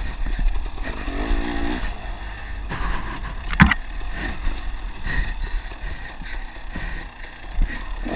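Dirt bike engine running and revving as the bike is ridden hard along a rough trail, with wind buffeting the microphone and a sharp knock about three and a half seconds in.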